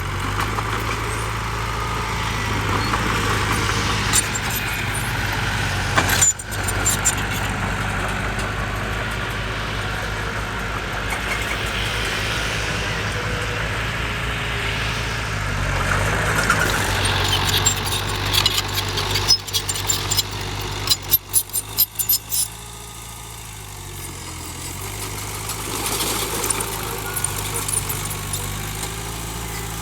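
Heavy diesel earthmoving machinery running steadily, with metallic clanking and rattling over the engine. A cluster of sharp clatters comes about 18 to 22 seconds in, and after it the sound is quieter for a few seconds.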